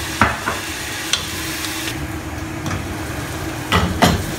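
Chicken pieces sizzling as they are sautéed in a pot, stirred with a wooden spatula that knocks against the pot a few times, loudest twice near the end.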